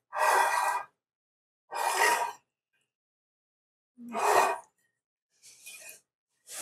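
Wire whisk stirring cream of chicken soup and chicken stock in a baking dish, heard as several short bursts of scraping and sloshing about a second apart.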